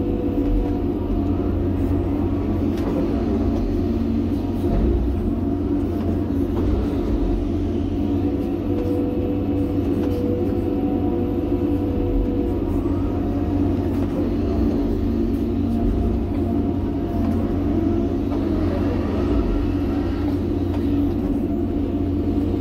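John Deere 350G excavator's diesel engine running steadily under load, heard from the cab, while the boom and bucket work dirt. A steady whine comes and goes over the engine, with a few brief rising and falling pitch changes.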